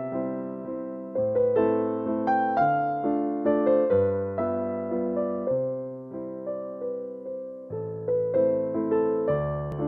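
Background music: a soft piano melody over sustained bass notes, each note struck and fading away.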